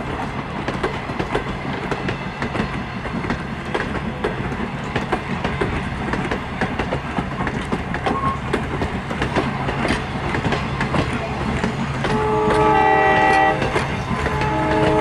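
Old passenger coaches rolling slowly past, their wheels clicking over rail joints above a steady low rumble. About twelve and a half seconds in, a train sounds a chord of several notes for about a second.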